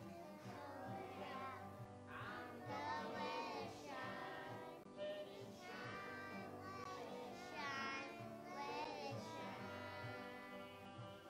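A small group of young children singing a song together, accompanied by acoustic guitar.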